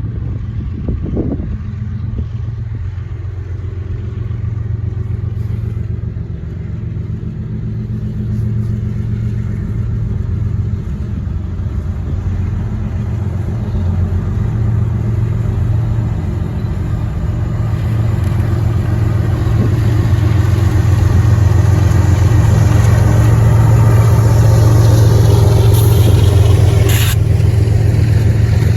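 Diesel locomotives, GE ES44ACs with their V12 engines, running under power and growing steadily louder as the train approaches. A single sharp crack is heard a little before the end.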